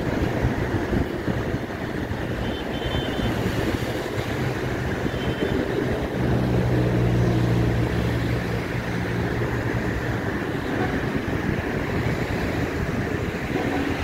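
Steady wash of small waves breaking on a sandy shore mixed with road traffic and wind rumbling on the microphone. A vehicle's engine hum swells about six seconds in and fades a few seconds later.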